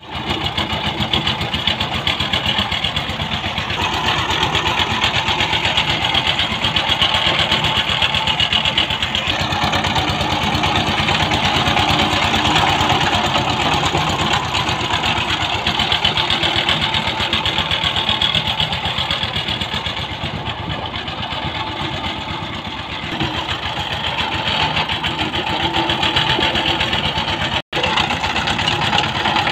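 Two-wheel power tiller's single-cylinder diesel engine running steadily under load with a fast, even chug as the tiller is driven along. There is a brief gap near the end.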